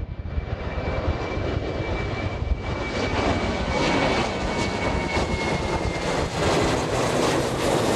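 Jet airliner's engines running at high power, a dense roar that grows steadily louder, with a thin high whine that fades out about halfway through.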